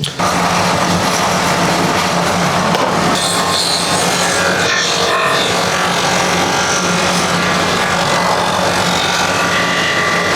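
Electric woodworking machine running steadily on a cricket bat, with a constant motor hum under an even grinding noise.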